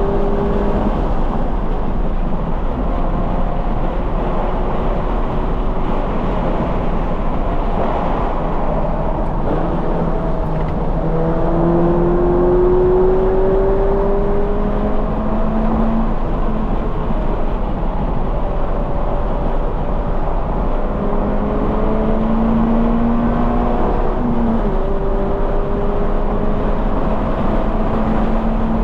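2020 Toyota 86's 2.0-litre flat-four with a Corsa cat-back exhaust, run hard on track: the engine note climbs steadily with revs and drops back at each shift, several times over.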